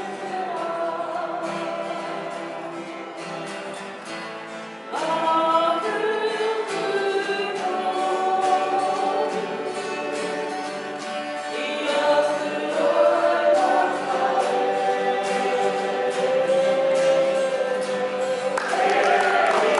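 Group of men's and women's voices singing a waiata in harmony, with acoustic guitars strumming. The singing eases off and then comes in louder about five seconds in, and applause starts near the end.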